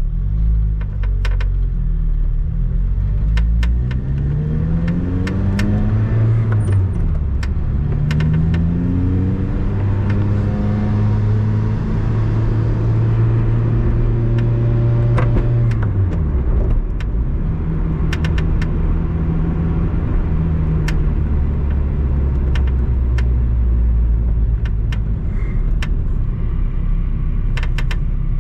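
A Lotus sports car heard from inside the cabin, its engine pulling away and rising in pitch through several gear changes, then cruising. Short, sharp creaks come at irregular moments from the driver's footwell or the left side of the dashboard. The creak does not follow engine speed, and its source is still untraced: suspects include the front shock top mount, the clam access panel, the sway bar mounts and the wheel liner.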